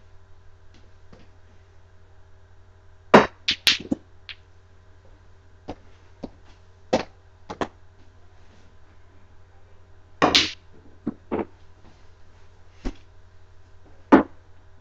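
Sharp clacks of a mini tabletop pool game: a cue striking the ball and balls knocking together. There is a quick cluster about three seconds in, scattered single clacks after it, a longer one around ten seconds, and one hard strike near the end, all over a steady low hum.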